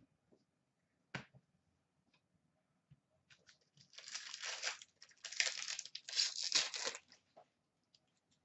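The plastic wrapper of an Upper Deck hockey card pack being torn open and crinkled, in three rustling tears between about four and seven seconds in. A single light tap comes about a second in.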